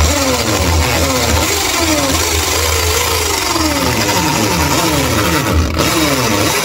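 Corded electric drill boring into a wall, its motor running loudly with the pitch repeatedly sagging as the bit is pressed in and climbing back as the pressure eases.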